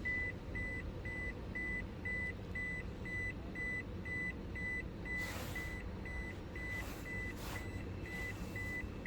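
Electronic beeper sounding a short high-pitched beep over and over at an even pace, about two beeps a second, with some faint handling noise in the second half.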